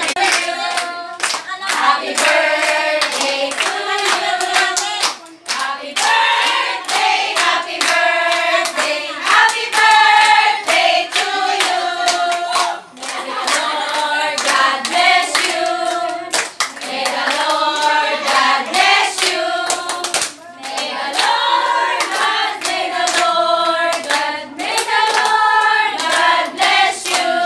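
A large group of women singing a birthday song together and clapping along.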